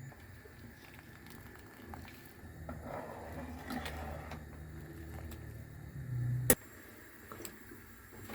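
Light clicks and scraping handling noises over a low hum, then a sharp click about six and a half seconds in, after which the hum stops.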